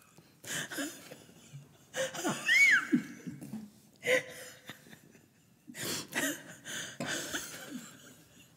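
A woman and a man laughing hard in fits, with coughs and gasping breaths. A loud, high squeal of laughter comes about two and a half seconds in.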